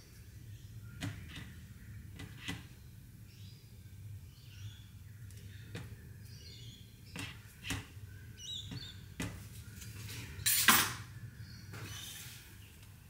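Scattered light clicks and knocks as a silicone spatula scrapes and taps raw soap batter off a stick blender's head against a plastic jug, with a louder clatter a little over ten seconds in. Birds chirp faintly in the background.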